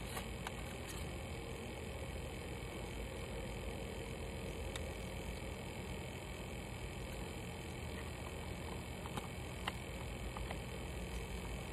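A steady low background hum, with a few light clicks and taps as a cardboard phone box and its paper insert are handled.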